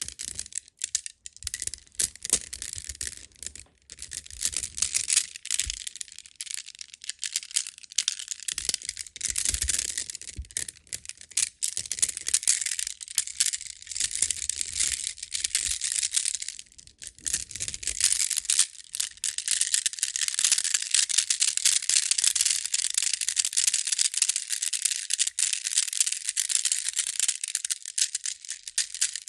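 Pietersite stones rattled and rubbed together, a dense run of small clicks and clacks.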